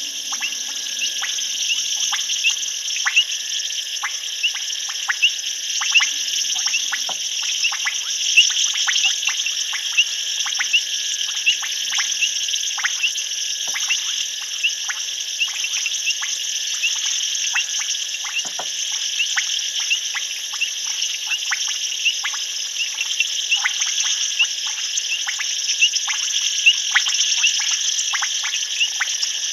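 Night chorus of insects and frogs: steady high-pitched insect trilling, with many short, sharp frog calls scattered irregularly over it, a few each second.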